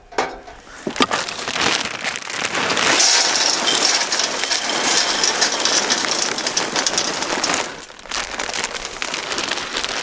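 Wood pellets poured into a fire pit onto a fine mesh, a steady rain-like pattering of many small pellets that starts about a second in and stops near the end.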